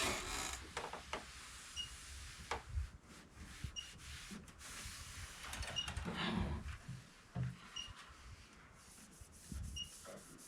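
Microfiber cloth rubbing and scuffing along a TV's bezel and edges, with a few soft knocks. A faint short high beep repeats about every two seconds.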